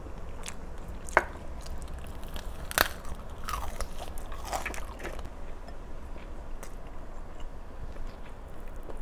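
Close-miked biting and chewing of crispy pork with fresh vegetables: sharp crunches, the loudest about a second in and just under three seconds in, with softer crunching and chewing between.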